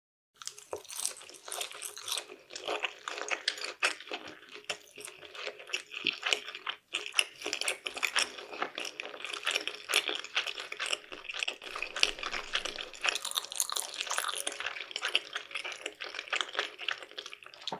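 Close-miked eating sounds of sushi being chewed: a dense, continuous run of small wet clicks, smacks and squelches of rice and raw fish in the mouth.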